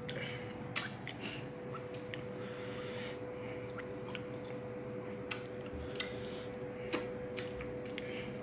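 Irregular sharp clicks and cracks of cooked lobster shell being broken and picked apart while eating, over a steady hum.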